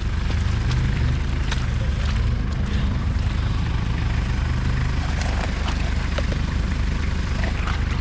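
Off-road 4x4's engine running steadily, with a few faint clicks and knocks over it.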